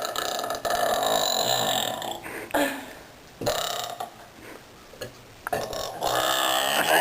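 A person belching loudly, a run of long drawn-out burps one after another with short gaps between them.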